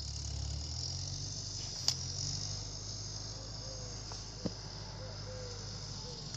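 Steady high-pitched chirring of field insects over the low hum of a distant John Deere tractor moving a round straw bale, with a few short falling whistles in the second half.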